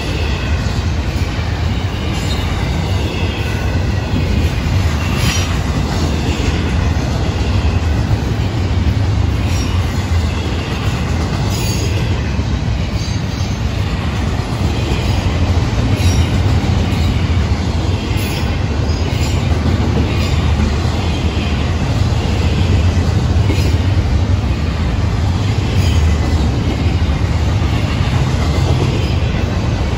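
Freight cars of a double-stack intermodal train rolling past at close range: a steady, loud rumble of steel wheels on the rails, with scattered sharp clicks from the wheels crossing rail joints.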